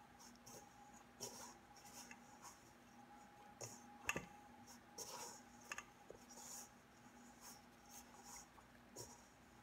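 Hands kneading soft bread dough in a stainless steel bowl: faint, irregular rubbing and squishing strokes with a few light knocks against the bowl, the sharpest about four seconds in, over a faint steady hum.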